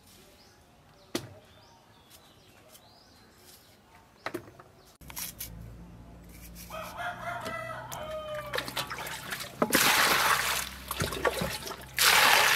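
Two sharp knocks of a cleaver cutting through cucumber, then a rooster crows in the background. Water is then poured into a metal basin of cut cucumbers, a loud rushing splash in two spells, the second near the end.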